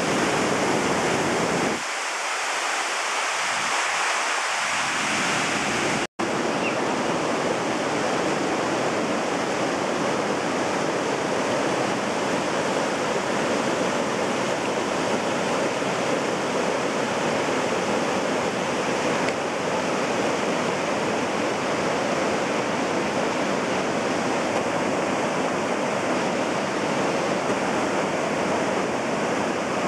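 Whitewater of a mountain river rushing over granite ledges and small falls: a steady, loud rush of water. The sound cuts out for a split second about six seconds in.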